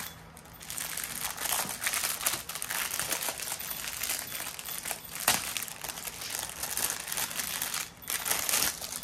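Plastic packaging of a diamond painting kit crinkling and rustling as it is opened by hand, with one sharp click about five seconds in.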